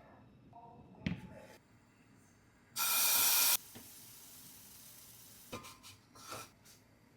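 A sharp knock, then about three seconds in a loud burst of hiss lasting under a second that cuts off suddenly, leaving a faint hiss, with two short clatters near the end.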